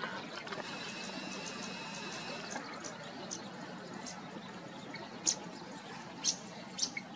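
Outdoor pond ambience: a steady hiss with a faint high whine for the first couple of seconds, then a few short, sharp high chirps in the second half.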